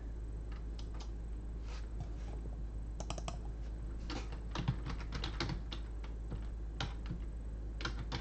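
Typing on a computer keyboard: scattered keystrokes, with quick runs about three and four to five seconds in, over a steady low hum.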